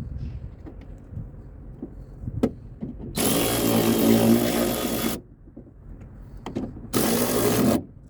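Power drill driving the screws of the tail light assembly back in: one run of about two seconds, then a shorter run of about a second, with a few knocks before them.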